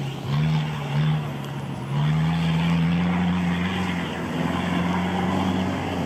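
Off-road 4x4 engine revving hard under load: two short bursts of throttle, then revs held high for several seconds, easing slightly and climbing again.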